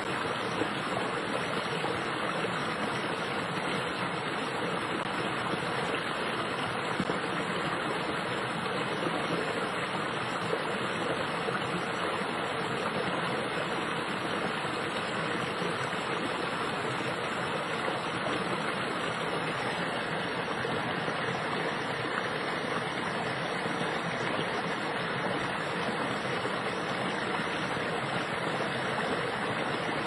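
Fast-moving brook flowing over rocks: a steady, even rush of water that does not change.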